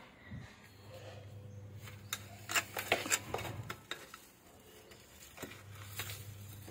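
Small metal hand hoeing tool scraping and digging through potting soil, with several sharp clicks of metal against the pots.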